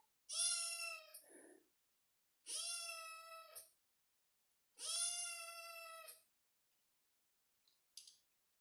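Kitten meowing: three long, high-pitched meows of about a second each, evenly spaced, followed by two faint clicks near the end.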